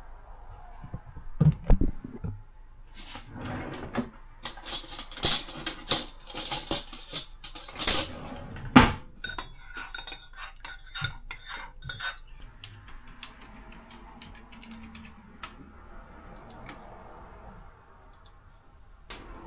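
Kitchen clatter of knocks and clinks, then a metal spoon stirring coffee in a ceramic mug, clinking rapidly against the sides for a few seconds before it stops.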